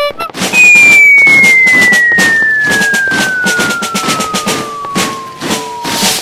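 A loud whistle falling steadily in pitch for about five and a half seconds, over rapid crackling pops like firecrackers.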